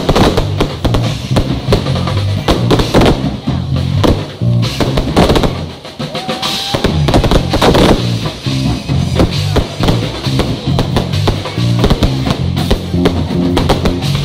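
Loud music with a heavy drum beat and a stepping bass line, over which fireworks go off: shells and cakes bursting with repeated sharp bangs, thickest about five to eight seconds in.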